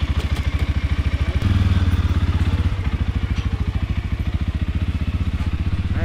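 CFMoto CForce 400 ATV's single-cylinder four-stroke engine running at low revs with a steady chug of firing pulses, a little louder about a second and a half in.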